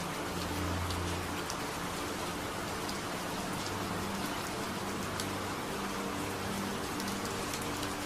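Recorded rain falling steadily, with scattered ticks of single drops, laid over low humming drone tones that swell and fade: a rain-and-delta-wave sleep soundtrack.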